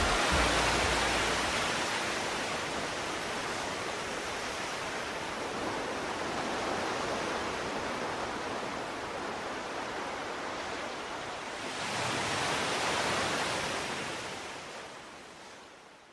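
Ocean surf: an even wash of waves, easing off, then a wave swelling and breaking about twelve seconds in before the sound fades out.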